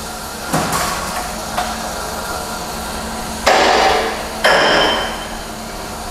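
Automatic wire straightening and cutting machine running while steel wire is straightened: a steady electric-motor hum, a sharp metallic knock about half a second in, and two loud metallic clatters about three and a half and four and a half seconds in, the second one ringing.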